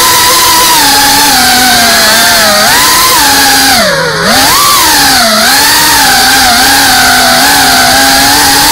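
FPV racing quadcopter's electric motors and propellers whining, heard from on board. The pitch rises and falls with throttle, and about four seconds in it drops sharply before climbing back.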